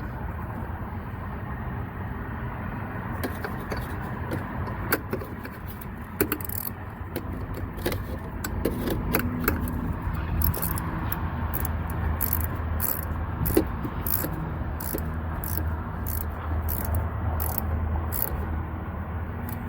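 Hand tools clicking and clinking on metal as a new A/C receiver-drier is fitted and its fittings tightened, in irregular sharp taps that come more often after about ten seconds. A steady low engine hum runs underneath.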